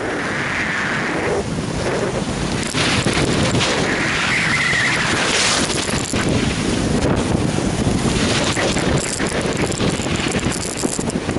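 Wind rushing over the camera microphone while sliding fast down a groomed ski run, mixed with the hiss and scrape of edges on packed snow, swelling into louder hissing passages about a second in and again around the middle.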